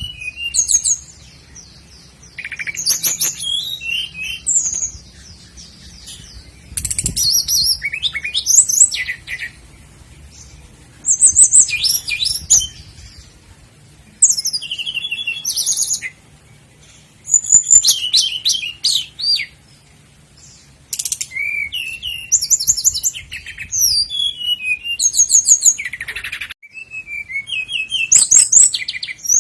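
Common nightingale singing. It gives phrases a few seconds long of fast trills, rattling repeated notes and whistles, with short pauses between them.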